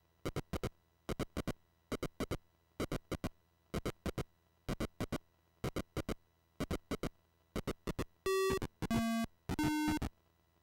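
Chip-generated game sound from a Yamaha YM2149 sound chip: short clicks in clusters of two or three, repeating about once a second. Near the end come three held buzzy beeps in a row, the middle one lowest.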